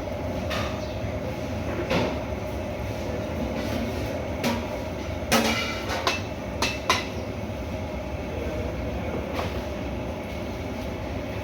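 Steady rumbling noise with a few sharp knocks, most of them bunched together about five to seven seconds in.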